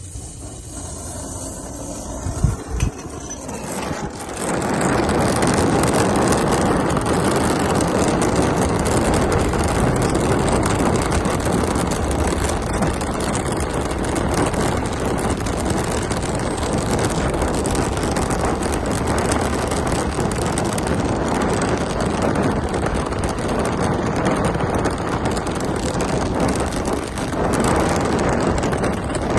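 Brazing torch flame running steadily, lit about four seconds in after a couple of sharp clicks, to braze a leaking, corroded U-bend on an air-conditioner condenser coil with nitrogen flowing through the tubing.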